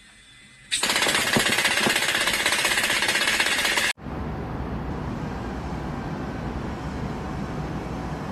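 Loud, rapid mechanical hammering starting about a second in and cutting off abruptly near four seconds, then a steady low rumble of machinery.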